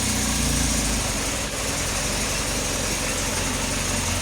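Toyota 5E-FE inline-four petrol engine idling just after starting, assembled without a head gasket and with the ignition timing fully retarded. The idle settles a little lower about a second in.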